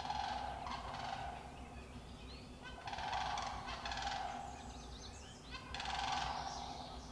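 Sandhill cranes calling: three rolling, rattling bouts of about two seconds each with short pauses between them.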